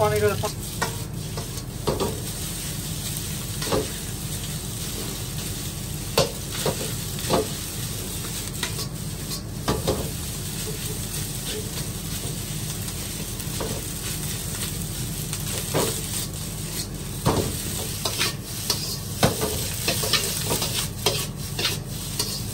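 Rice, egg and diced sausage sizzling in a hot metal wok, stir-fried with a metal spatula that scrapes and knocks against the pan at irregular moments. A steady low hum runs underneath.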